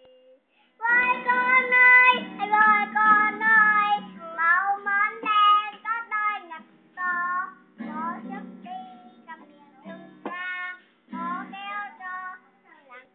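A young girl singing in short phrases while strumming an acoustic guitar; the singing starts about a second in.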